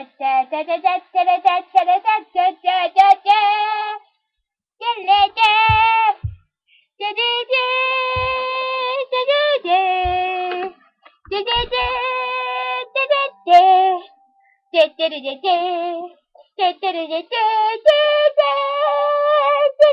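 A child singing in short phrases with brief pauses between them, the pitch wavering.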